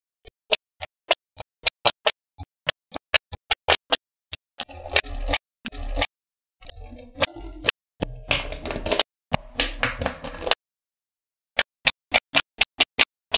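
Small magnetic balls clicking sharply as pieces snap onto a slab of balls, about three clicks a second. About four seconds in, the clicks give way to several seconds of rattling as many balls roll and shift against each other, and single clicks return near the end.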